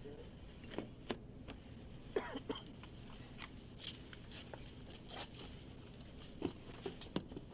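Faint, scattered clicks, knocks and rustling of movement close to a police body camera's microphone during an arrest, the sharpest knock about two seconds in.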